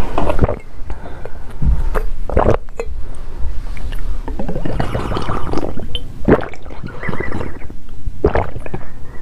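Close-miked gulping and swallowing of liquid drunk from a round glass bottle, with wet mouth sounds; irregular gulps come every second or so.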